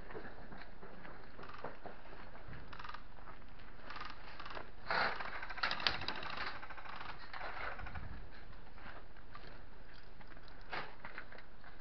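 Movement and handling noise from a body-worn camera as its wearer moves, with scattered small clicks and rattles over a steady hiss, and a louder scraping rustle about five seconds in.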